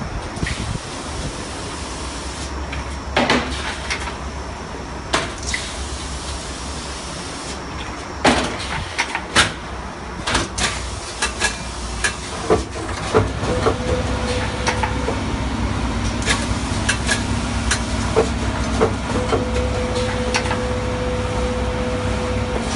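CMAF03-2 automatic Nespresso-compatible capsule fill-and-seal machine running: a steady low hum with irregular sharp clacks and knocks from its pneumatic cylinders and moving parts, which come more often in the second half. From about halfway, a steady mid-pitched whine comes and goes.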